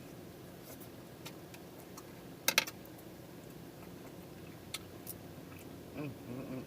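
A person eating: chewing and lip-smacking with scattered sharp mouth clicks, the loudest a quick cluster about two and a half seconds in. A brief voiced hum comes near the end.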